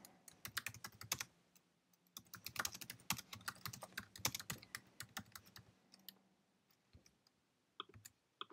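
Typing on a computer keyboard: quick runs of key clicks, a short pause after about a second, another run of typing, then only a few scattered clicks near the end.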